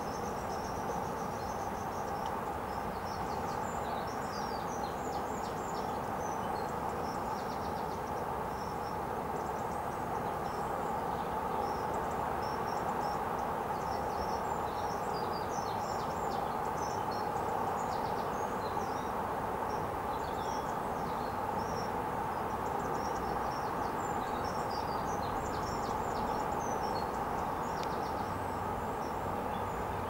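Outdoor ambience: a steady background noise, with many faint, short high chirps and twitters from small birds scattered throughout.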